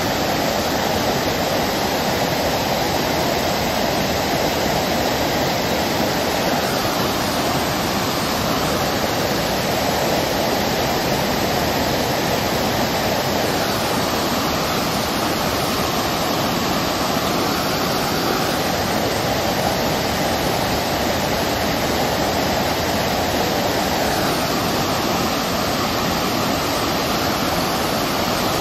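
Steady rush of fast-flowing water tumbling over and between concrete blocks.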